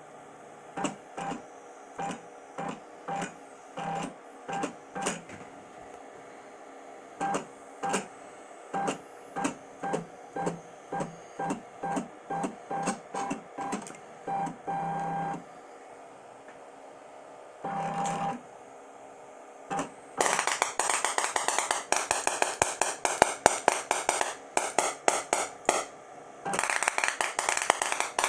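EDM sparks snapping between a bronze electrode and a steel grade 8 bolt under tap water. At first they come as separate sharp snaps, one or two a second, some with a short buzz, and twice as a longer buzz. About twenty seconds in they turn into a dense, rapid crackle that breaks off briefly near the end. The stop-start sparking is the sign of an arc that will not stay stable.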